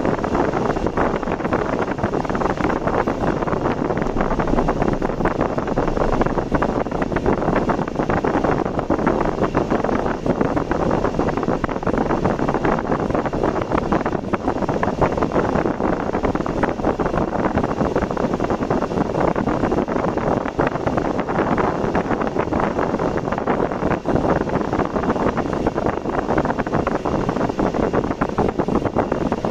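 Steady rushing noise of a car on the move: road and wind noise, with wind buffeting the microphone throughout.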